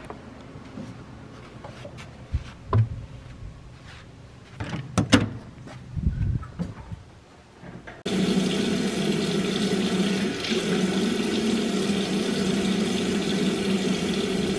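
Scattered clicks and knocks from handling and a door's lever handle. From about eight seconds in, steady water running into a bathroom sink from a tap.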